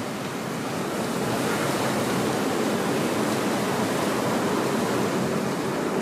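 Steady rushing noise of a heavy snow squall on a city street, wind and distant traffic blended together. It swells a little about a second in.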